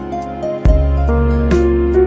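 Background music: gentle new-age style tune with sustained keyboard notes, a low bass and a light beat.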